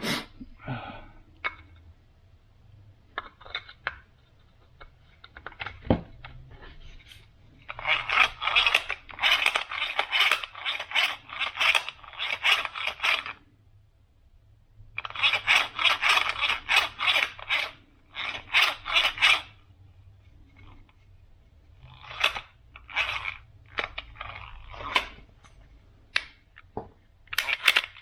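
Gears and housing of an opened throttle actuator from a BMW V10 being worked by hand: long bouts of rapid scraping clicks lasting several seconds, with short pauses, then scattered single clicks and knocks.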